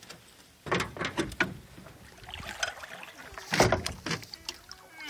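Scattered knocks and clunks of uneven strength on a small boat, the loudest about three and a half seconds in, with no engine running.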